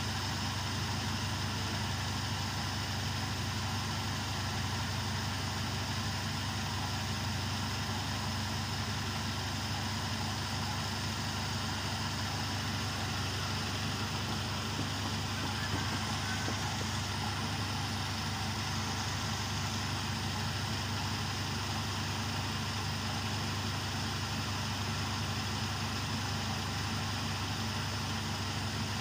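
Carbureted car engine idling steadily, with no revving. This is the engine before its repair, in the high-RPM state the fault causes.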